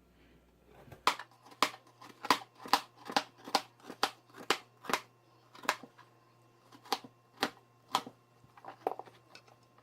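Knife chopping apples into small pieces: a series of sharp chops, about two a second, with a pause partway through and a few slower chops near the end.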